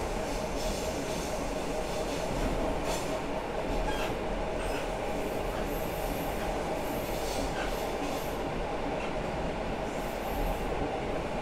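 Running noise of an EN57 electric multiple unit heard inside its passenger car: a steady rumble of the wheels on the track, with short high-pitched noises breaking in every couple of seconds.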